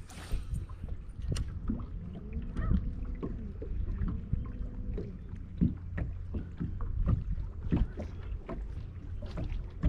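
Noises aboard a small fishing boat on the water: scattered short knocks and taps over a steady low rumble.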